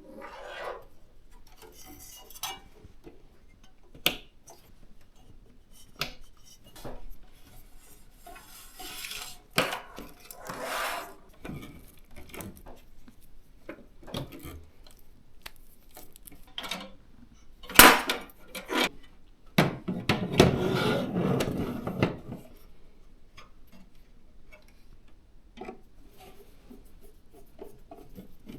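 Computer parts being handled during a PC build: scattered clicks and knocks of hard plastic and metal, with a rustling, scraping stretch lasting about two seconds near the two-thirds mark.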